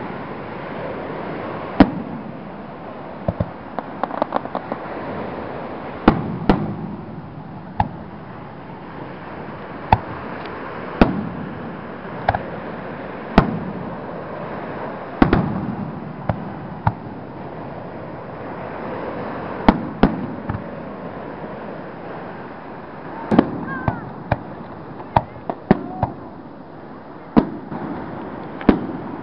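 Aerial fireworks shells bursting in a display: a run of sharp bangs at irregular spacing, a second or a few seconds apart and sometimes in quick clusters, over a steady background hiss.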